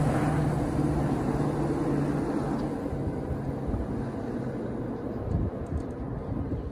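New Jersey Transit passenger train pulling away, its diesel locomotive engine running with a steady low hum over the rumble of the wheels on the rails, fading steadily as it recedes.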